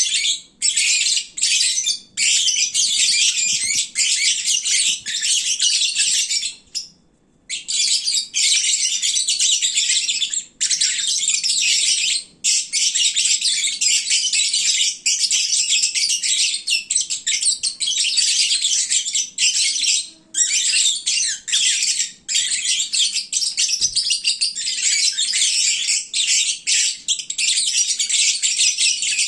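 Pet lovebirds chattering and chirping nonstop in a dense, shrill stream, with only brief breaks. This is the loud midday chatter that lovebirds make when they are full and drowsy.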